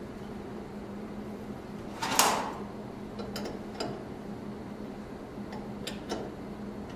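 Handling noises from fitting plastic tubing onto a pressure transmitter's process connection: a sharp knock-and-rustle about two seconds in, then a few light clicks, over a steady low hum.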